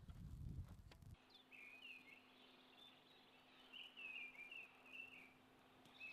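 Faint birdsong: scattered short chirping notes from small birds, following a low rumble that cuts off about a second in.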